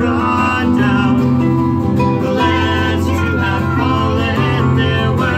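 Harp and acoustic guitar playing together in an instrumental passage of a live folk song, with plucked notes changing steadily over a held low bass.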